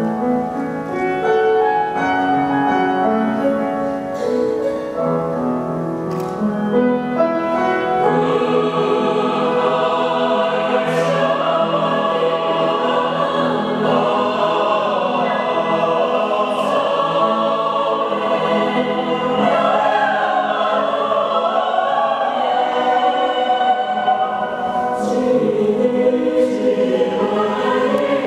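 Mixed choir singing in harmony with upright piano accompaniment in a church; the singing grows fuller about eight seconds in.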